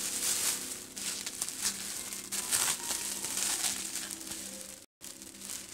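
Plastic bubble wrap crinkling and rustling in irregular surges as it is handled and pulled off a packed object, with a brief dropout a little before the end.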